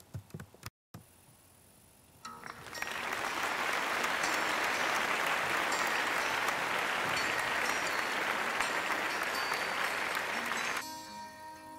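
Applause lasting about eight seconds, after which light plucked-string music begins near the end.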